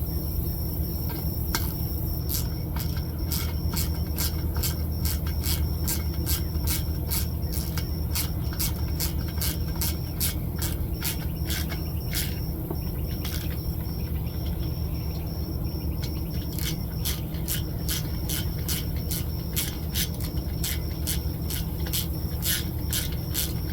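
A ratchet clicking in quick runs, a few clicks a second with short pauses, as bolts are tightened down into a diesel heater's pot-metal housing, over a steady low hum.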